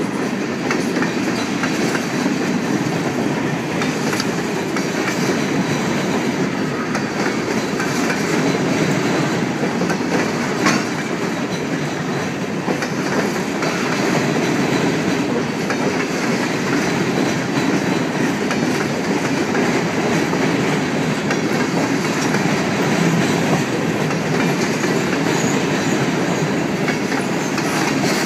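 Freight train cars rolling steadily past, steel wheels clicking over the rail joints, with one louder knock about eleven seconds in.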